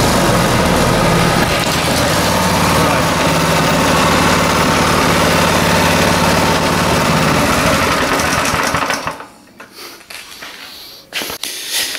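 Single-cylinder 168F four-stroke engine, a Chinese clone of the Honda 200cc, running steadily on a bench, then stopping about nine seconds in. A few knocks follow.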